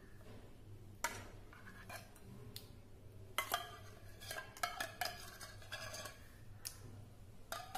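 A metal spoon scraping fresh cream out of a tin and tapping it onto a dish, with irregular light clinks and scrapes.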